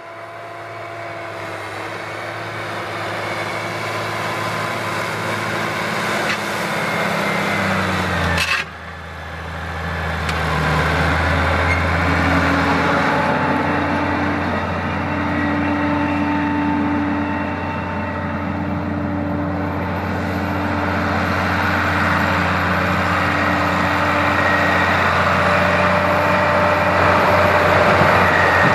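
Ford 8830 tractor's turbocharged six-cylinder diesel engine working steadily under load as it pulls a disk through sod. It grows louder over the first several seconds, breaks off suddenly about eight and a half seconds in, then runs on louder and steadier.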